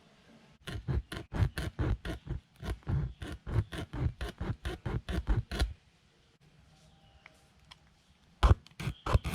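Tyre repair kit's T-handle rasp worked in and out of the puncture hole in the tyre, a fast run of scraping strokes about four a second, then a few louder strokes near the end after a pause. This reams the hole bigger so the rubber plug can go in.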